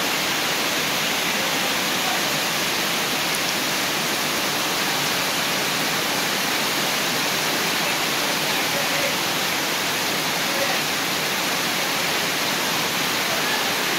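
Heavy rain pouring down in a steady rush of noise.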